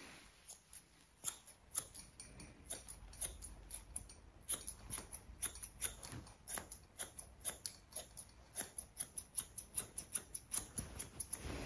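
Grooming scissors snipping through a dog's facial hair: short sharp snips, a few scattered ones at first, then a quick steady run of about three or four a second.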